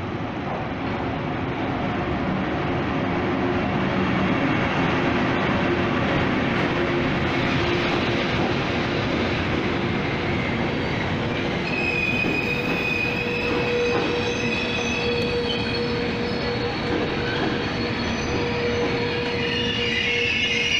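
Frecciabianca passenger train pulling into the platform: a steady rumble of coaches rolling past, then from a little past halfway a high, steady squeal of wheels and brakes as it slows.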